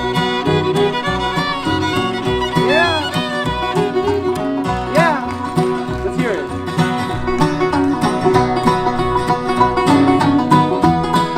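Bluegrass band playing an instrumental break: a fiddle leads with sliding, bending notes over banjo rolls, guitar and a steady bass beat.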